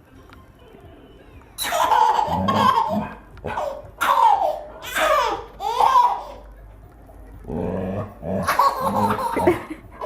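A baby laughing in repeated bursts, starting about one and a half seconds in, with a short pause a little past the middle.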